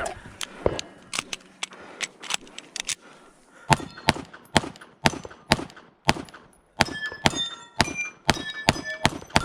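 Shotgun being loaded with shells: a quick, irregular run of sharp clicks and clacks, busier from about halfway through, with some ringing metallically.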